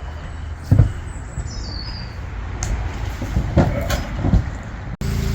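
Engine-driven pumps pumping water out of a sunken narrowboat, a steady low rumble broken by three sharp thumps. Near the end it switches to a steadier, even engine hum.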